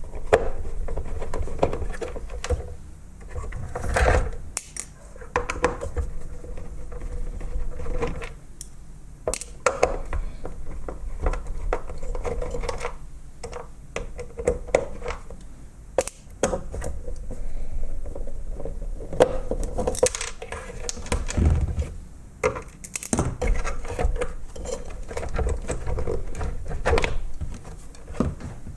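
Clicks, knocks and clatter of plastic and metal parts and tools being handled while a robot vacuum's blower motor housing is taken apart. Stretches of a steady hum come and go between the knocks.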